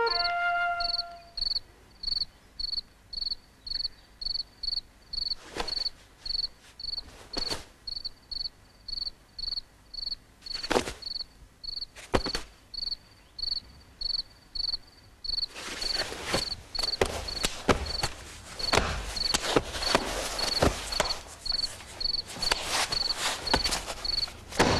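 Crickets chirping in an even rhythm of short high pulses, about two a second, as a night-time sound effect. A few sharp knocks come before the middle, and from about two-thirds of the way in a stretch of rapid rustling clicks joins the chirping.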